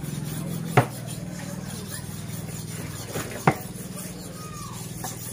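Large knives chopping raw meat on wooden boards: a sharp chop about a second in, a lighter one near three seconds and another sharp chop just after, over a steady low hum.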